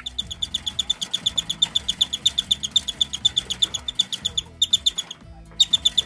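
Male cockatiel giving a fast run of short, high chirps, about eight a second, during a wing-spread display dance; the run breaks off a little past four seconds in and resumes in two short bursts. Background music plays underneath.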